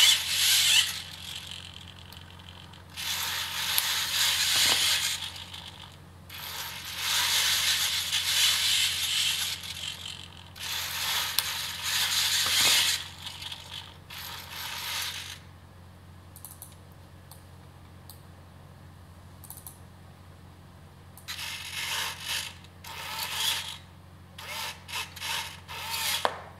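Hobby servos of a 3D-printed InMoov robot arm running in bursts of a few seconds as they pull the finger tendons to close and open the hand. After a quiet stretch of several seconds, a run of shorter bursts comes near the end.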